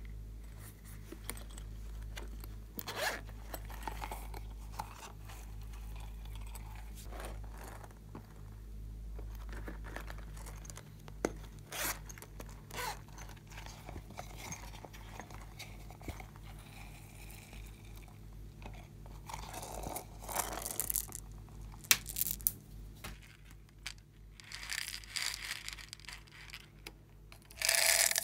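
Hands handling a soft plastic zip pouch: scattered clicks and taps, and a few longer raspy stretches of its zipper being pulled, over a faint steady low hum.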